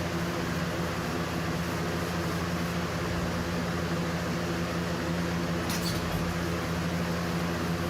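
Electric window fan running steadily, a constant hum over a rushing whoosh. A brief faint click about six seconds in.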